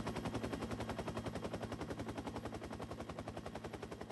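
AH-1 Cobra attack helicopter running on the ground with its rotor turning: a rapid, even blade chop over a steady low engine and gearbox hum, easing off slightly near the end.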